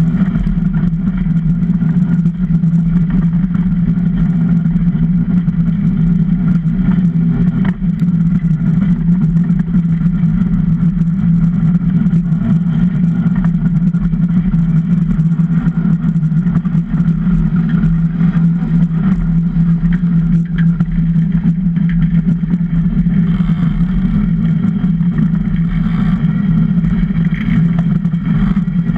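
Super DN iceboat's steel runners rumbling over hard lake ice at speed, a loud, steady low hum carried through the wooden hull to the onboard camera.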